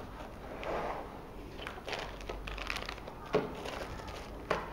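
Small plastic zip-lock bags crinkling and rustling as hands sort through a clear plastic accessory box, with two sharp knocks of hard plastic parts, one a little over three seconds in and one near the end.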